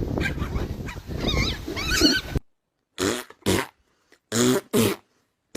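A dog vocalizing: rough, noisy growling with a few high, wavering whines, then after a sudden cut short sounds in pairs with silence between them.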